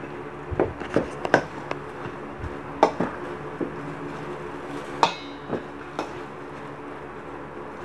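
Irregular clinks and knocks of a utensil and hand against a stainless steel mixing bowl while ground meat stuffing is mixed, with a soft squelch of the mixture between them. One clink about five seconds in rings briefly.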